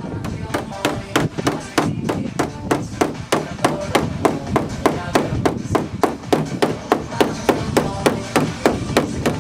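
Rapid, evenly spaced hammer blows, about three strikes a second, with music playing faintly underneath.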